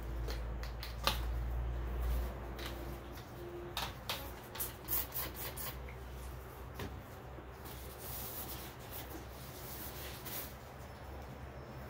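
Paper towel rustling and crinkling as gloved hands fold and handle it, in short irregular rustles, over a steady low hum.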